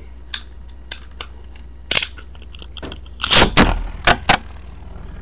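Plastic clicks and knocks of Beyblade spinning tops and their launcher being handled. A louder rasping burst comes about three and a half seconds in, followed by two sharp clicks.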